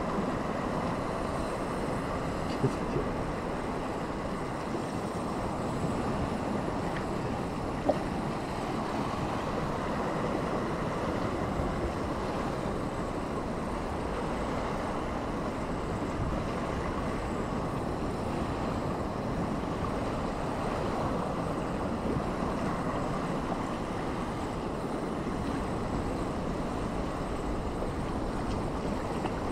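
Steady wind noise on the microphone over sea waves washing against the rocks, with a few faint clicks.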